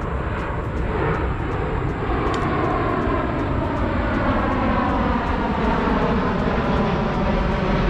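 Aircraft flying by, a steady engine noise whose tone slowly falls in pitch while it grows a little louder.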